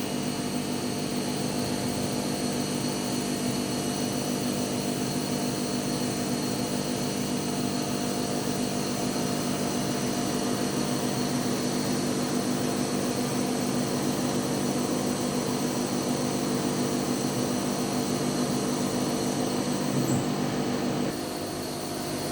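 Welding on a stainless steel exhaust: a steady buzzing hum with many even tones that holds unbroken, then drops a little about a second before the end.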